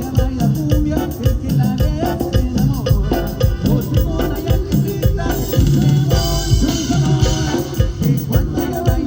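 Live band playing upbeat Latin dance music with a steady, even beat.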